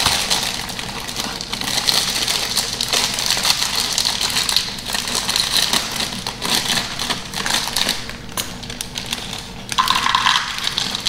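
Plastic bag of chocolate chips crinkling as it is opened and handled, a dense run of small crackles and clicks. Near the end the chips are poured out, rattling into a small bowl.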